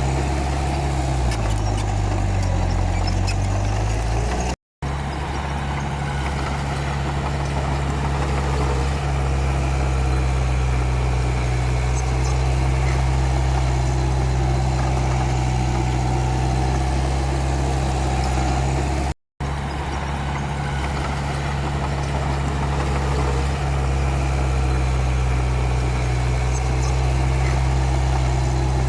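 Komatsu D31P bulldozer's diesel engine running steadily. Its pitch dips for a few seconds near the start, then recovers. The sound drops out for an instant twice.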